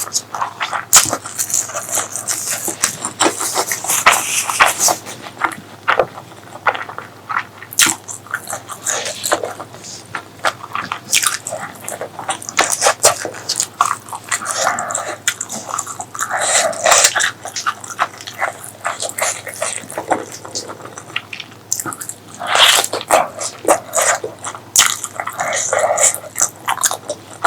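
Close-miked eating sounds of someone eating spicy pork leg curry with rice: continuous wet chewing with many quick clicks and smacks of the mouth.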